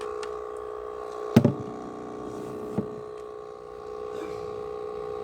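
Small thermal printer built into an instant-print digital camera, running as it prints a black-and-white photo: a steady whine from its paper-feed motor, with a sharp click about a second and a half in and a fainter click near three seconds.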